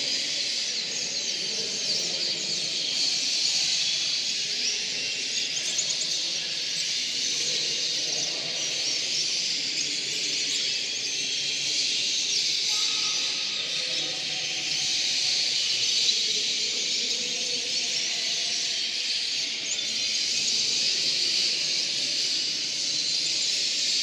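Many domestic canaries singing at once, a dense, continuous chorus of high trills and chirps.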